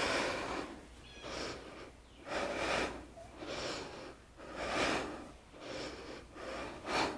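A woman breathing hard and audibly through repeated abdominal crunches, each rep a forceful breath out followed by a softer breath in, about four breath cycles in a steady rhythm.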